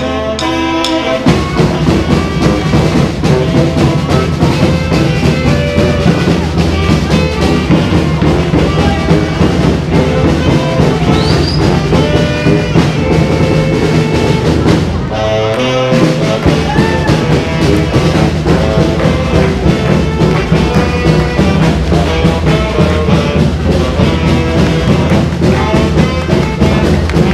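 Upbeat music with brass and drums over a steady beat, thinning briefly about halfway before picking up again.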